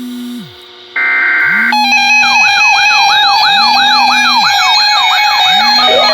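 Electronic siren-like wail sweeping rapidly up and down, about three times a second, over steady high electronic tones, with a low tone swelling and fading every second and a half. It begins after a short burst of dense electronic tone about a second in.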